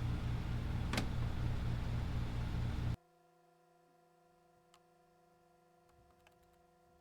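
A steady machine hum with a pulsing low drone and a single click about a second in; it cuts off abruptly about three seconds in, leaving only a faint electrical hum and a few light clicks.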